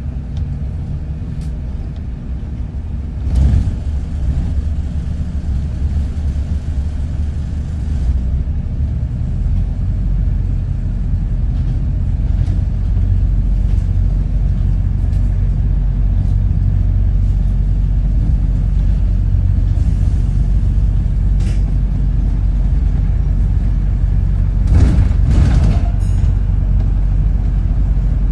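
Double-decker bus engine and running gear rumbling as heard from inside the bus, growing louder about nine seconds in. There are brief knocks or rattles about three seconds in and again near twenty-five seconds.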